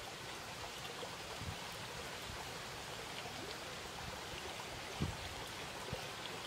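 Steady rushing of running water, with a couple of soft low thumps from hands pressing minced pork into bitter melon rings; the clearest thump comes about five seconds in.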